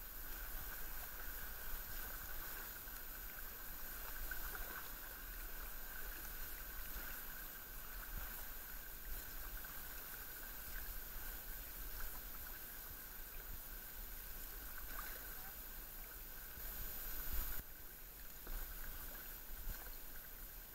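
Kayak paddle blades dipping and pulling through the sea, with irregular splashes and water washing against the hull of a tandem sit-on-top kayak.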